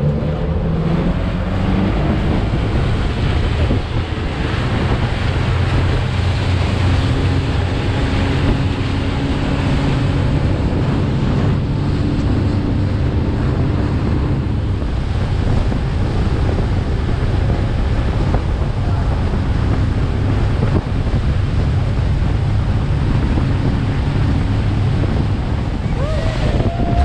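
Tour speedboat running fast on the river: a steady low engine drone under wind buffeting the microphone and water rushing past the hull.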